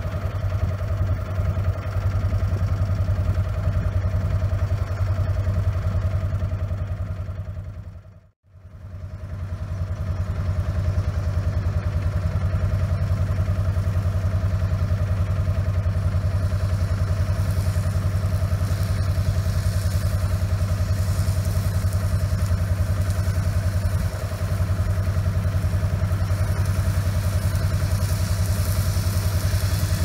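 Diesel farm tractor engine running steadily while the tractor mows grass with a side-mounted rotary mower. The sound fades almost to nothing about eight seconds in and comes straight back.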